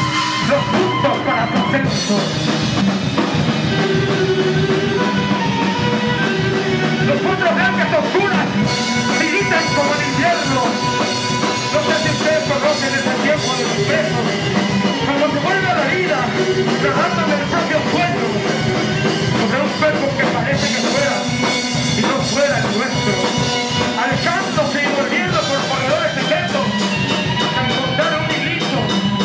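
Live instrumental rock: electric guitar and drum kit playing together, dense and loud without a break.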